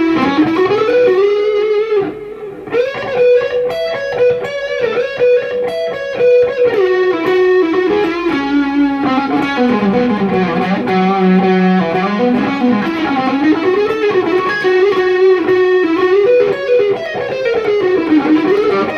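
Fender Player Series Stratocaster electric guitar played through an amplifier: a melodic lead line with string bends and vibrato. About halfway through it drops to a lower, held passage, then climbs back up.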